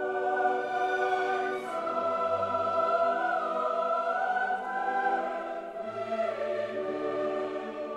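Background choral music: voices singing long held notes that shift in pitch every second or two, with orchestral backing.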